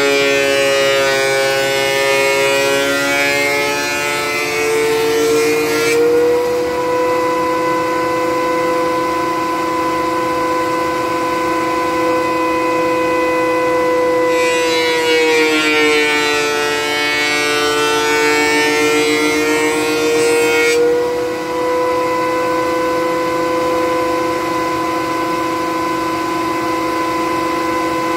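Benchtop thickness planer running with a high, steady motor whine. A harsh cutting noise sets in and the whine drops in pitch while a maple board feeds through under load: once until about six seconds in, and again for about six seconds in the middle. Between the passes the motor whines on steadily with no load.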